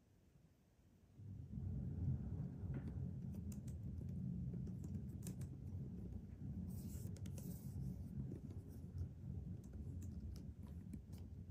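Large cat exercise wheel turning under a walking Bengal cat: a steady low rumble that starts about a second in, with scattered light clicks and taps.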